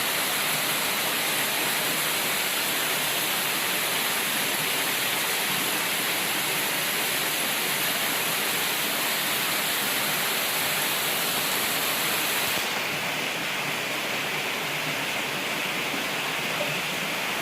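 Steady rush of fast-flowing mountain water. About three-quarters of the way through, the rush turns slightly quieter and duller.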